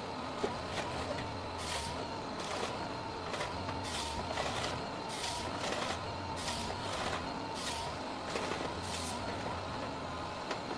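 Heavy forestry machine running: a steady engine drone broken by short hissing bursts, roughly one or two a second.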